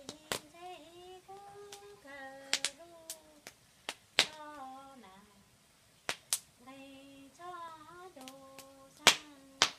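A woman singing a Hmong song unaccompanied, holding long notes that slide between pitches. Several loud, sharp pops from a small wood fire crackling break in through it.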